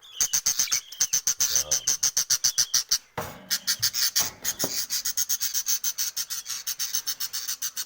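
Budgerigar chicks begging: a fast, steady train of short high-pitched chirps, about eight to ten a second. A few knocks about halfway through come from handling the nest box.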